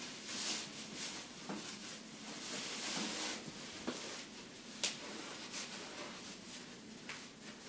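Rustling and crinkling of a disposable diaper's plastic backing as it is pulled up and adjusted at the waist, with a steady rustle for the first three seconds and a few sharp crinkles about five seconds in.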